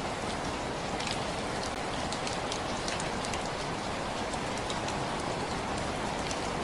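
Steady rainfall, a constant hiss with many individual drops ticking on a surface.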